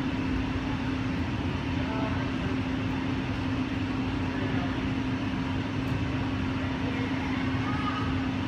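Steady mechanical hum with a constant low tone, the kind made by the ventilation and air-handling system of a large indoor sports hall.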